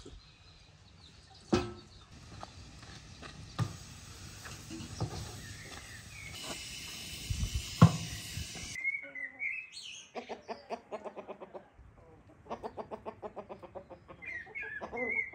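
Chickens clucking in rapid runs of short calls through the second half, with a few higher chirping calls. Before that, a few sharp knocks and clatter.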